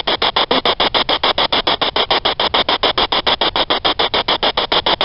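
Ghost-hunting 'black box' spirit box sweeping radio channels: a loud, rapidly chopped static, about ten bursts a second.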